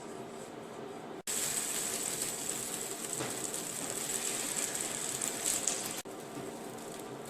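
Thin lentil batter sizzling and crackling in a hot oiled pan. The sizzle starts abruptly about a second in and stops abruptly about six seconds in.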